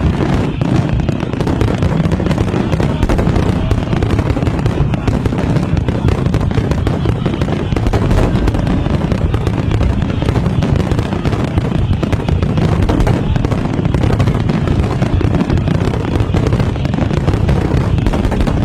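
Fireworks display: a dense, continuous barrage of bangs and crackles with no let-up.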